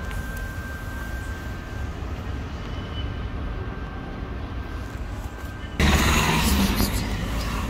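Steady low outdoor rumble; about six seconds in, a sudden, louder rustling noise begins as the phone is swung and handled.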